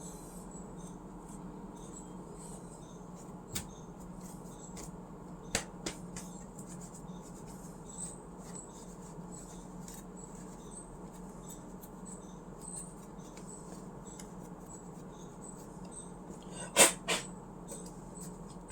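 Faint rubbing as a cloth with surgical spirit wipes laptop parts, with a few light clicks. Two sharper plastic knocks come near the end, over a steady low hum.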